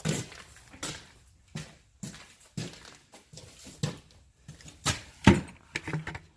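A series of short knocks and thumps, roughly one a second, the loudest ones near the end.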